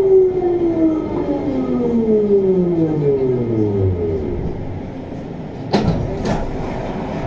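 VAL 208 rubber-tyred automated metro train pulling away: the traction electrics whine in several tones that glide steadily down and fade about four seconds in, over steady rolling noise. Two sharp knocks come about half a second apart near six seconds in.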